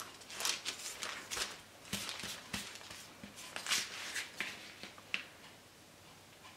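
Hands pressing and patting a soft filled dough roll on crinkly baking paper: a string of soft, irregular rustles and light taps that die away about five seconds in.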